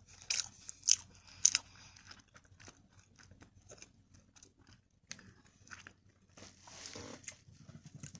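A person eating close to the microphone: three sharp bites in the first second and a half, then quieter chewing with small scattered mouth clicks.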